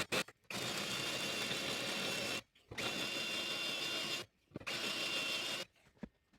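Electric drill drilling into the steel piece, run in three bursts of about one and a half to two seconds each with short stops between, a steady whine over the noise of the cut.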